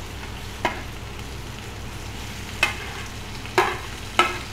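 Steel slotted spoon clinking against the plate and the steel kadhai as boiled cluster beans are scooped into hot oil: four sharp clinks, the last two louder and briefly ringing, over a steady low frying hiss.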